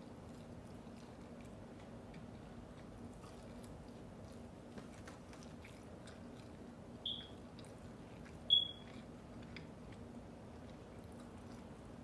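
Close-miked chewing of food, with many small wet mouth clicks over a faint steady hum. Two short high chirps come a little after halfway, about a second and a half apart, and the second is the loudest.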